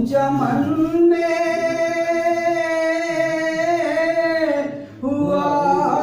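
A man's voice singing a ghazal without accompaniment, holding one long steady note for about three and a half seconds, breaking off briefly near the end before singing on.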